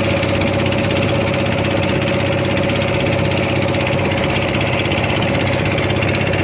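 Fishing boat's engine running steadily at close range: a loud, even, rapid chatter with a strong steady hum.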